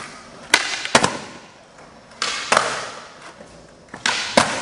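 Skateboard popping and landing on a flat concrete floor: three pairs of sharp cracks, the tail snapping down and then the wheels slapping back onto the ground, each followed by the noise of the board rolling away.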